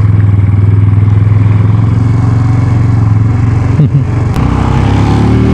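Rusi Gamma motorcycle engine running steadily while riding. About four seconds in there is a brief break with a click, then the engine pitch climbs as it accelerates.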